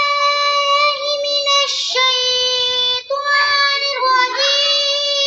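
A child's voice reciting the Holy Quran in a high, melodic chant. The voice holds long, steady notes in a few phrases, with short breaths between them.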